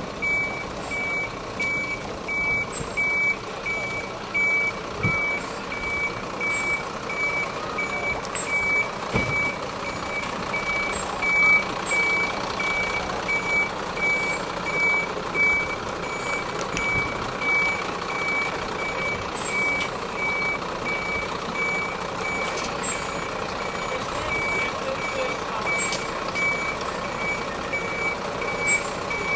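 A fire truck's reversing alarm sounding a steady series of high, evenly spaced beeps over the truck's engine running as it backs a boat trailer down a ramp into the water.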